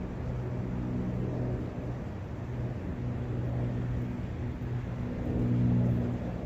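A low engine hum, as from a distant motor vehicle, swelling and fading in strength and loudest near the end, over the steady rush of a brook.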